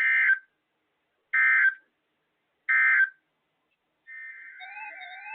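Three short bursts of SAME digital data tones, about a second apart: the end-of-message code that closes an Emergency Alert System / NOAA Weather Radio alert. About four seconds in, quieter music with a wavering, warbling tone begins.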